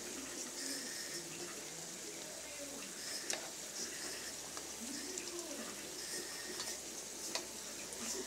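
Hot oil sizzling steadily in a wok as sticks of food shallow-fry, with several sharp clicks of metal tongs against the pan as the pieces are turned.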